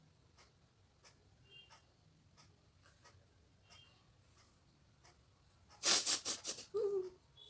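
A woman trying to force a sneeze breaks into coughing: four or five sharp, loud bursts in under a second about six seconds in, ending in a short voiced sound that falls in pitch. Before that, only faint regular ticks about every two-thirds of a second.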